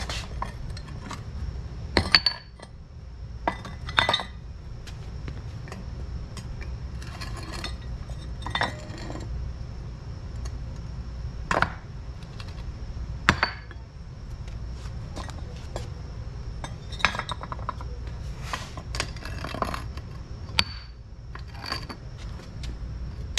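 Metal tongs clinking and knocking against metal ingot moulds and freshly cast aluminium ingots as the ingots are lifted out and set down: about a dozen scattered sharp clinks, the loudest about two and four seconds in.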